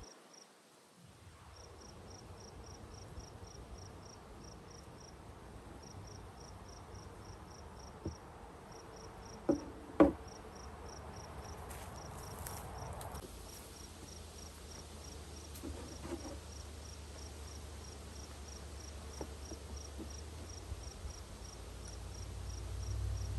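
Insect chirping steadily outdoors, short high-pitched pulses at about four a second with brief pauses. Two sharp knocks about halfway through stand out as the loudest sounds.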